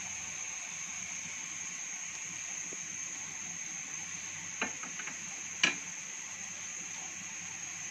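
Pot of kadha heating on the stove with a steady, high-pitched hiss. A short run of sharp clicks comes about four and a half seconds in, and one louder click about a second later.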